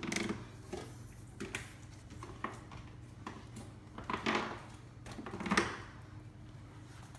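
Old rubber refrigerator door gasket being pulled out of its channel in the door liner: scattered rustles, scrapes and light clicks, with a few louder rustles about four and five and a half seconds in. A steady low hum runs underneath.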